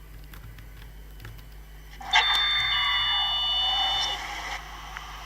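Lift arrival chime: a two-note electronic ding-dong, the second tone coming about half a second after the first, ringing for about two seconds before fading.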